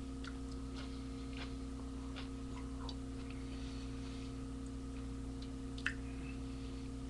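Steady low electrical hum with scattered faint clicks and ticks, and one sharper click about six seconds in.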